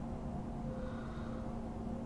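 Steady machine hum with one low, even tone and a faint rumble beneath it, unchanging throughout.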